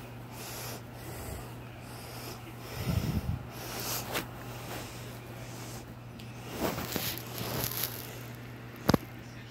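A small dog lying in a blanket, snorting and snuffling softly, with rustling of the blanket and one sharp click near the end.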